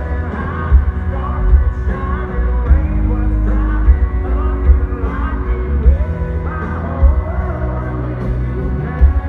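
Live country band playing at full volume with singing over it and loud drum hits, the low end heavy and booming as heard from the concert crowd.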